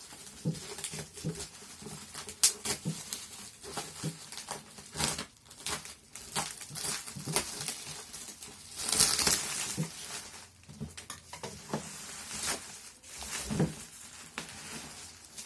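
A cardboard product box and its plastic wrapping being handled and opened: scattered taps and knocks, crinkling, and a longer rustling, tearing burst about nine seconds in.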